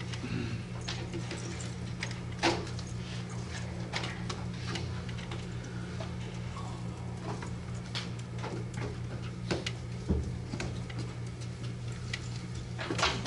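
Scattered clicks and knocks from a laptop and cables being handled and plugged in at a lectern, over a steady low hum. The sharpest knocks come about two and a half seconds in, around ten seconds in and near the end.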